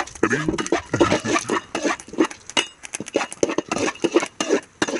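Metal ladle stirring and scraping dry-roasting dal in an aluminium kadai, with quick repeated clinks and scrapes of metal on metal.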